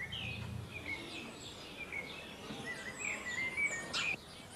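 Common starling singing: a varied run of whistles, slurred pitch slides and chattering notes, busiest and loudest near the end.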